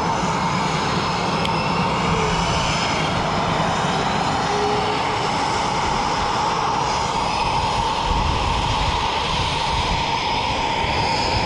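RAF Eurofighter Typhoon's twin EJ200 jet engines running steadily on the ground, a constant whine over a broad rushing noise.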